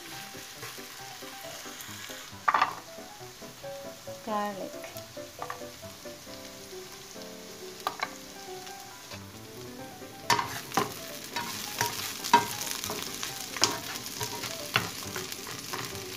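Sliced red onion and garlic sizzling in hot oil in a coated non-stick frying pan, with a spatula scraping and knocking against the pan as it stirs. The scrapes and taps come much more often in the second half.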